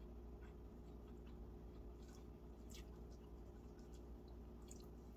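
Faint chewing and small wet mouth clicks, a handful of soft ticks scattered through, over a low steady hum.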